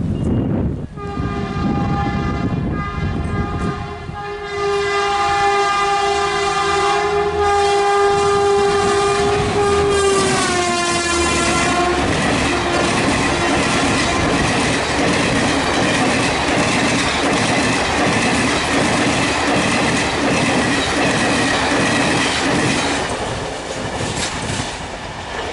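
Indian Railways WAP4 electric locomotive's horn sounding one long blast of about ten seconds that drops in pitch as the locomotive passes, followed by the loud rumble and clickety-clack of its express coaches running by at speed, fading near the end.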